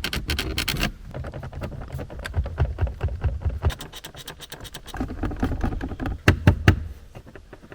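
A car's interior plastic trim being rocked and pressed by hand, giving an irregular run of rattles, creaks and knocks, with a few sharper, louder clicks near the end. This is a squeak-and-rattle check for loose panels and broken clips.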